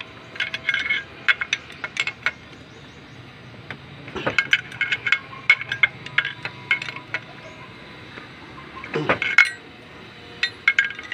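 Metal clinking and rattling from a wrench and parts being handled at the timing chain and gear of a Nissan GA16 engine. Short bursts of sharp clinks come in clusters, with duller knocks about four and nine seconds in.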